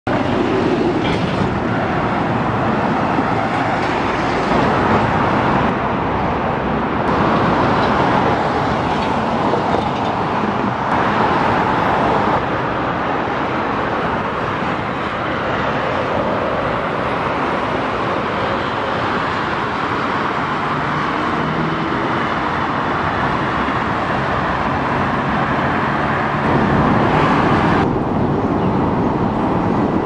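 Steady urban road-traffic noise, a dense rush of passing cars. Its character shifts abruptly several times.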